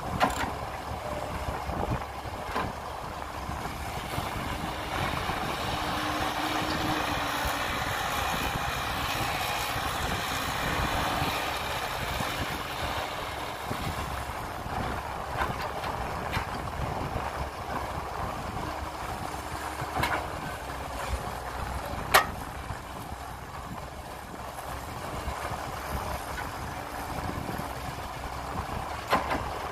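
Heavy earth-moving machinery (excavator and dump trucks) running with a steady engine drone. The drone grows louder from about four seconds in to about fourteen seconds, with a few sharp knocks, the loudest a little past the middle.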